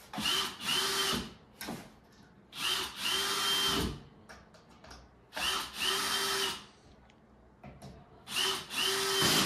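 Power drill driving screws into pre-drilled black melamine panels in about seven short runs, mostly in pairs with pauses between, each a steady motor whine lasting about a second. The screws are being started, not yet set all the way in.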